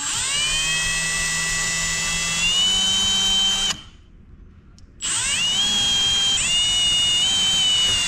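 Power drill with a hole saw running in two bursts of about four and three seconds. Each burst spins up with a rising whine, holds a steady pitch and then stops.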